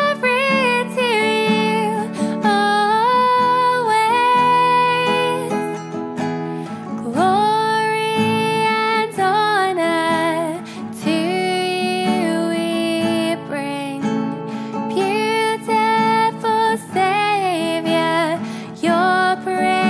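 A worship song in which a woman sings phrase by phrase over strummed acoustic guitar.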